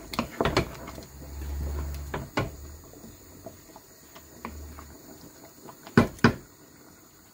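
Spoon stirring a pot of soup and knocking against the rim and sides of the stainless steel pot, several sharp clacks. The loudest two come close together about six seconds in.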